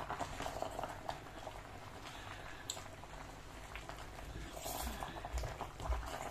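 Pot of egusi soup with spinach bubbling at the boil: a steady bubbling hiss with small pops, and a few brief clicks about two-thirds of the way through.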